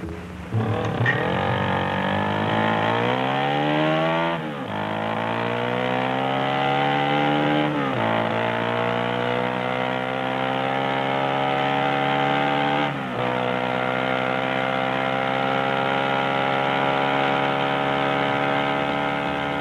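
Honda motorcycle engine accelerating through the gears: its pitch climbs and drops back at each of three upshifts, about four and a half, eight and thirteen seconds in, then holds nearly steady at speed.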